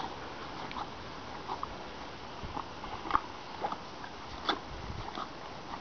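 A horse eating licorice: irregular crunches and clicks of chewing and nibbling at the feed. The loudest come about three seconds in and again about four and a half seconds in.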